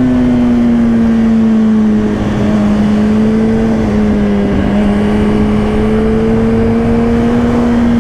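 Motorcycle engine running at steady high revs while riding, its pitch easing down slightly over the first two seconds and then holding, with heavy wind rush over the microphone.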